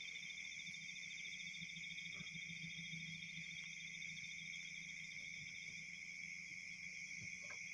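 Crickets and other night insects trilling steadily at several pitches at once, one of them with a fast, even pulse. Under them runs a low steady hum of a vehicle engine.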